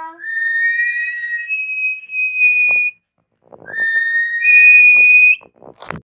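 Indian ringneck parakeet whistling two long two-note phrases. Each holds one clear note, then steps up to a higher note and holds it. Scattered clicks fall between the phrases, and a sudden loud bump comes at the very end.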